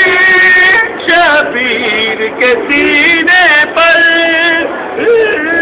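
A solo voice singing or chanting a slow melody, holding long notes with ornamented bends in pitch and brief breaks between phrases.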